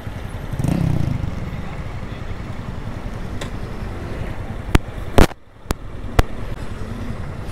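Honda Fan 160 single-cylinder motorcycle engine running on the move under steady wind noise on a helmet microphone. A few sharp clicks come about five to six seconds in, with the sound briefly dropping out between them.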